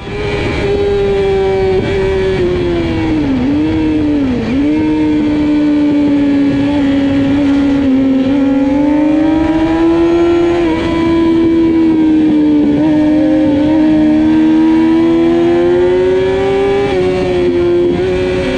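Racing sportbike engine at high revs, heard from on the bike, holding a near-steady high pitch. It dips briefly twice a few seconds in, then climbs slowly near the end.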